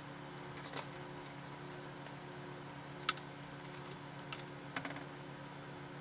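Steady low hum and hiss with four light clicks, one of them doubled about three seconds in and the loudest.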